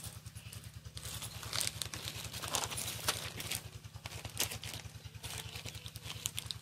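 Paper instruction manual and clear plastic parts bag rustling and crinkling as they are handled, with scattered crackles and ticks, loudest between about one and four and a half seconds in. Under it runs a steady low pulsing hum.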